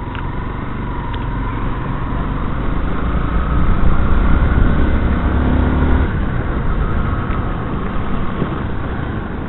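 Yamaha Crosser 150's single-cylinder engine running as the bike rides along, with wind and road noise on the helmet microphone. It gets louder about three and a half seconds in and drops back about six seconds in.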